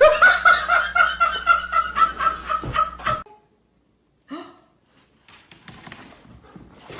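A person laughing in quick, rhythmic bursts of about four a second, stopping abruptly after about three seconds.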